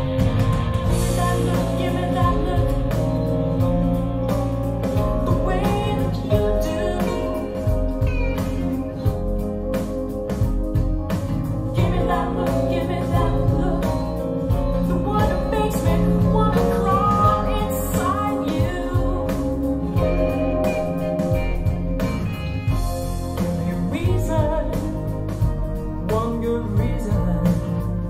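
Rock music with singing, played through a pair of Wharfedale Diamond 240 floor-standing speakers and picked up by a microphone in the listening room.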